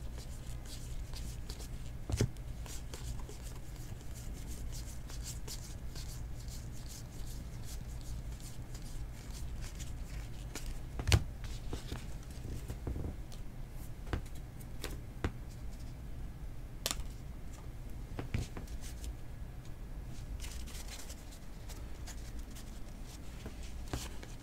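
Stack of trading cards being flipped through and handled, soft papery rustles and ticks with a few sharper clicks, over a steady low hum.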